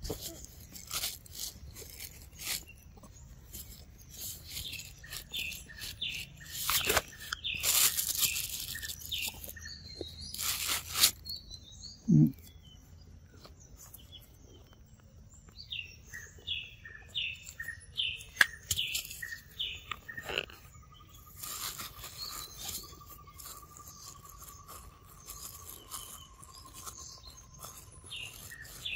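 Macaque biting and chewing a large fruit: repeated crunching and tearing in the first half. Birds chirp in quick short notes through the second half, with a long steady tone for several seconds near the end.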